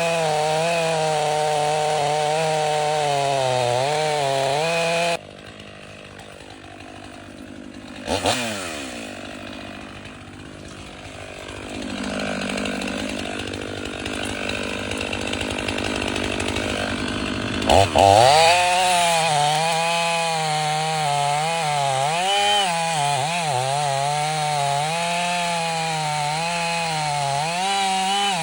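Stihl 500i fuel-injected two-stroke chainsaw running and cutting, its engine pitch wavering under load. About five seconds in the sound drops away abruptly to a quieter stretch with one sharp crack; after two sharp knocks the saw comes back in the second half, cutting with the same wavering pitch.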